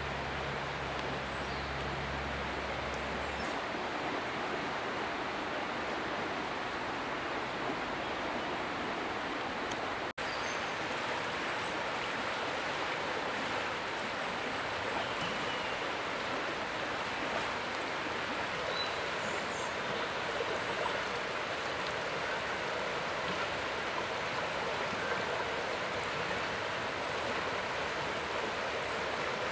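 Steady rushing of a flowing river, with a few faint bird chirps over it.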